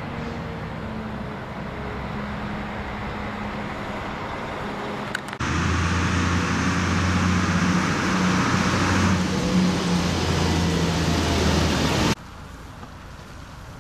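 Heavy diesel trucks running, with a steady low engine hum. About a third of the way in, a truck close by is much louder, a deep engine drone with tyre and road noise, which stops abruptly near the end.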